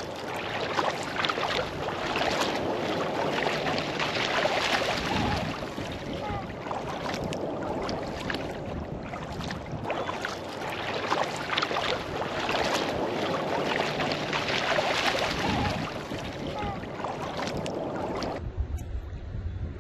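Sea kayak paddle strokes splashing and water rushing along the hull, with wind on the microphone. The splashing swells and fades in a steady rhythm, about one stroke every two to three seconds, and drops away suddenly near the end.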